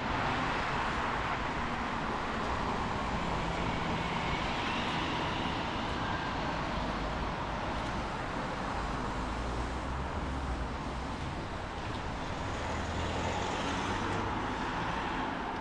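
Road traffic on rain-wet city streets: a steady hiss of tyres with the low rumble of engines swelling and fading as vehicles pass.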